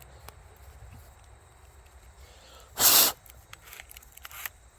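A single sharp puff of breath blown into the opened mini chainsaw to clear debris out of it, about three seconds in, with faint clicks of the parts being handled.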